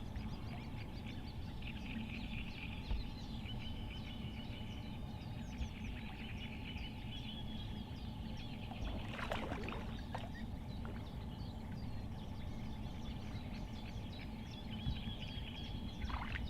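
Birds chirping and trilling continually over a steady low rumble of outdoor background noise, with one louder, brief sound about nine seconds in.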